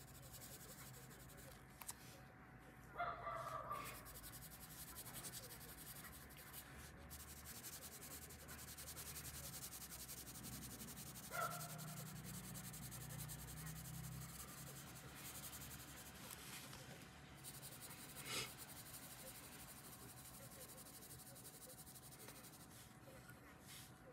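Colored pencil rubbing faintly on paper while an area is shaded in. A few short animal calls stand out, about three and eleven seconds in, and a brief sharp sound comes near eighteen seconds.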